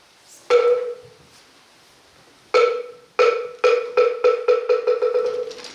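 Moktak (Korean Buddhist wooden temple block) struck: two single hollow knocks about two seconds apart, then a run of strokes that quickens and fades. This is the rhythm that paces the monks' prostrations.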